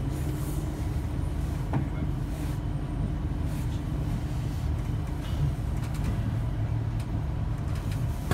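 A train's steady low engine or traction drone, with a few faint clicks and knocks over it.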